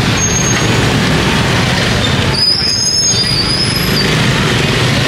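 Steady street traffic noise with a low rumble of passing vehicles and voices in the background.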